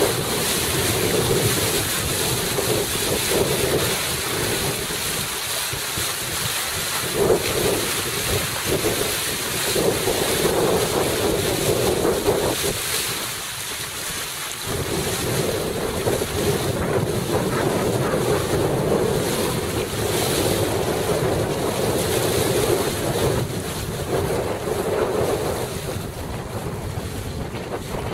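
Wind buffeting the microphone over the rush of water and waves around a sailing Laser dinghy, easing briefly about halfway through.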